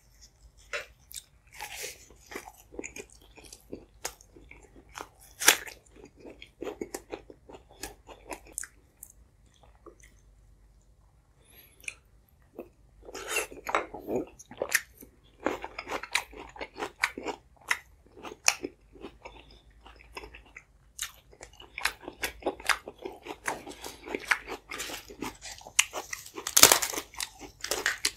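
Close-miked chewing and biting of food, a dense run of wet clicks and crunches. It thins out for a few seconds around ten seconds in, then picks up again, loudest near the end.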